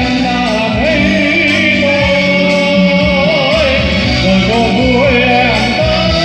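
A man singing a slow Vietnamese love song into a microphone over amplified backing music, with vibrato on the long held notes.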